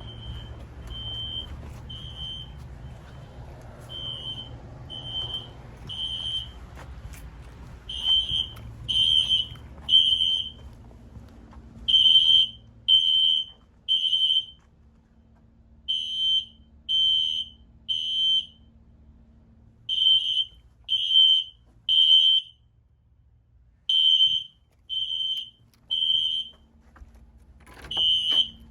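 System Sensor SpectrAlert Classic fire alarm horn sounding the temporal-3 evacuation pattern: three high beeps a second apart, then a pause, repeating every four seconds. The beeps are fainter at first and louder from about eight seconds in.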